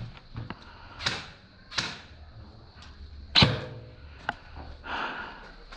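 Airsoft guns firing single shots: a few sharp, irregularly spaced snaps, the loudest about three and a half seconds in with a short ringing tail.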